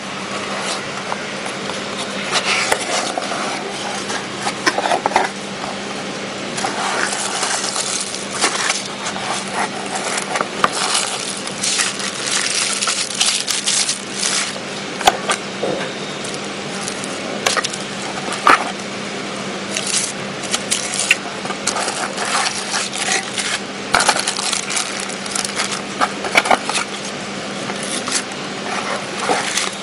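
Hands unpacking a cardboard box: bubble wrap and plastic packaging crinkling and rustling in irregular bursts, with cardboard scraping and rubbing. A steady low hum runs underneath.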